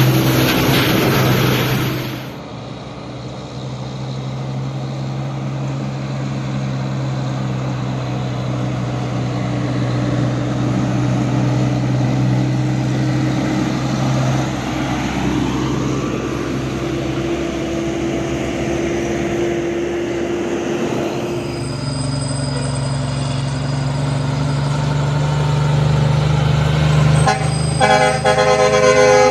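Semi-truck air horn blaring for about two seconds, then a diesel truck engine running steadily as trucks drive by, and the air horn sounding again near the end.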